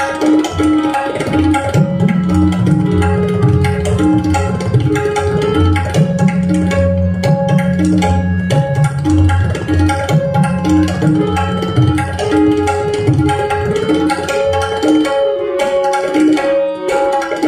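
Tabla solo: dense strokes on the right-hand drum with ringing bass strokes on the left-hand bayan. Under it a harmonium plays a lehra, a short melodic phrase repeated over and over.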